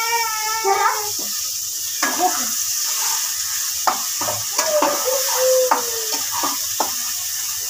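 Spice-and-tomato masala sizzling in hot oil in a metal pan while it is stirred, the spatula clicking and scraping against the pan every so often. The masala is being roasted (bhuna) in the oil.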